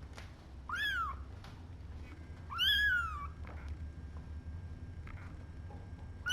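A three-week-old kitten mewing twice, each call rising then falling in pitch, the second longer and louder, with another starting right at the end. A steady low hum runs underneath.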